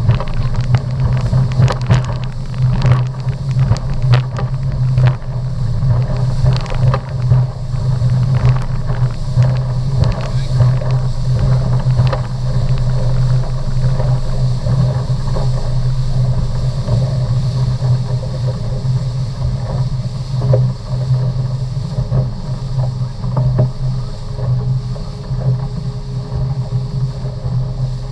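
Motorboat engine running steadily at speed, a constant low drone, with rushing wind and water noise and frequent short knocks throughout.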